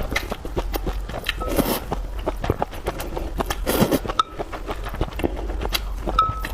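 Close-miked eating: chewing with many quick wet mouth clicks, and two longer slurping sounds about two seconds apart.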